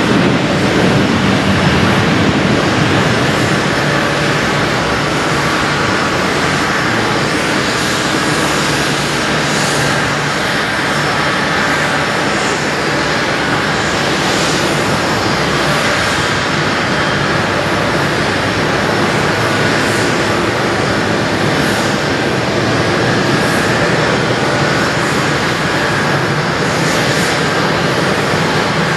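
Turbofan engines of a Boeing 777-200 airliner running, a steady, loud noise with a faint whine above it that holds for the whole stretch.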